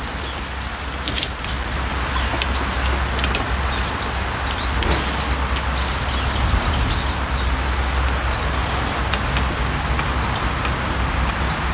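Outdoor ambience in light rain: a steady hiss over a low rumble, with scattered sharp drip-like ticks. A small bird chirps a string of short high notes between about three and seven seconds in.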